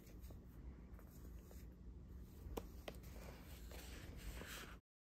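Faint handling of a paper journal: soft page rustling with two light taps a little past halfway, then the sound cuts off abruptly near the end.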